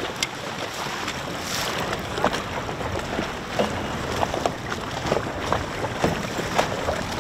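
Choppy water lapping and slapping against the hull of a small boat in irregular short splashes, with wind rushing on the microphone.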